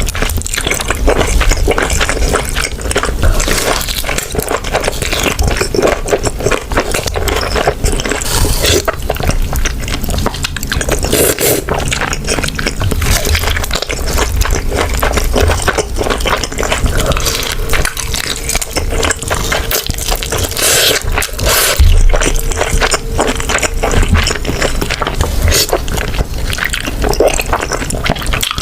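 Close-miked eating sounds: continuous wet chewing, smacking and squishing of saucy food in the mouth.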